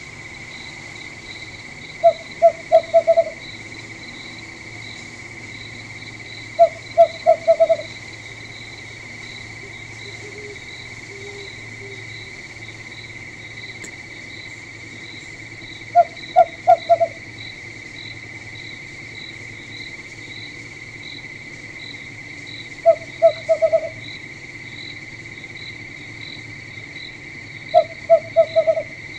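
An owl hooting in quick bursts of four or five short notes, five times, over a steady chorus of night insects such as crickets.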